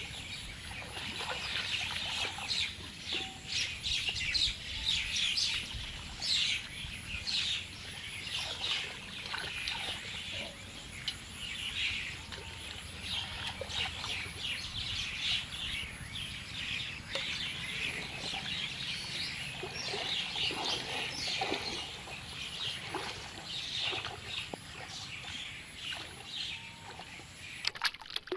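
Shallow floodwater splashing and sloshing as a person wades through it and scoops and pours water with his hands, a dense run of irregular short splashes.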